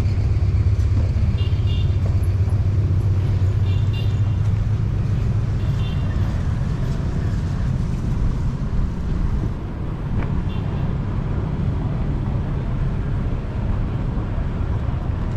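Steady low rumble of a moving vehicle and road noise.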